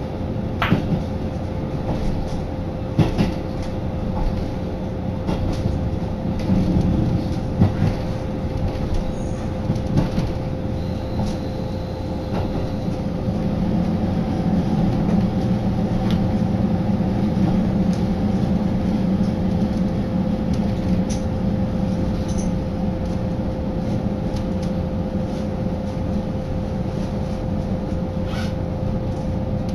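Inside the cabin of a diesel local train on the move: a steady low running rumble with a constant hum, a few sharp wheel clicks in the first seconds, and the rumble growing louder about halfway through.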